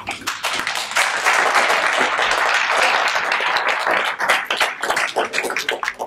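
Audience applauding: many hands clapping together, building up about a second in and thinning to scattered claps near the end.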